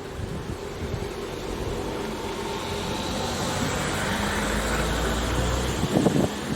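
Motor vehicle noise, rising gradually over several seconds with a low hum, then a few light knocks near the end.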